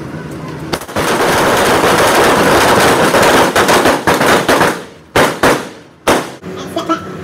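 M4 carbine fire on a firing line: about four seconds of rapid, overlapping shots that run together into one loud stretch, then three separate single shots near the end.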